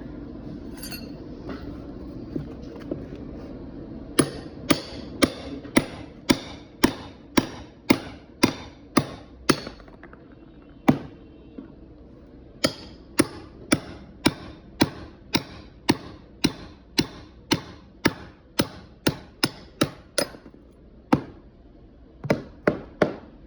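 Repeated hammer blows, about two a second in a steady rhythm, each with a short bright ring. The strikes stop for about two seconds midway, resume, and end with a few scattered blows.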